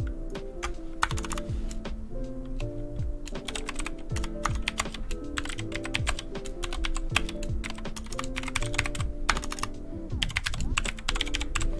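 Typing on a 60% mechanical keyboard with clicky blue switches: fast runs of sharp key clicks with brief pauses, over background music.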